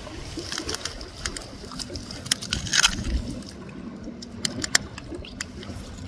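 Scattered sharp clicks and crackles on a wet, muddy rocky shore, with a louder scraping burst of clicks about three seconds in, over a low wind rumble.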